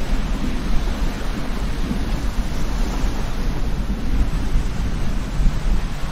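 Breaking surf from a heavy ocean swell: a steady wash of noise with a deep rumble underneath and wind buffeting the microphone.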